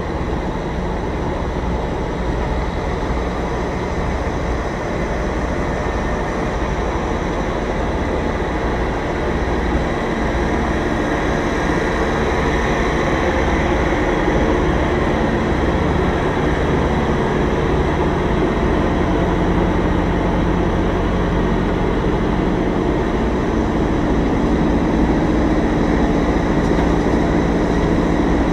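Semi truck's diesel engine running steadily at low revs as the tractor-trailer creeps backward, a constant low rumble that grows slightly louder over the stretch.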